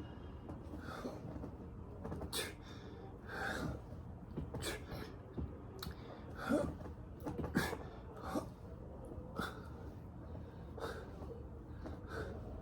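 A person breathing hard during exercise: short, sharp breaths and exhalations at irregular intervals, roughly one a second, with a few light knocks among them.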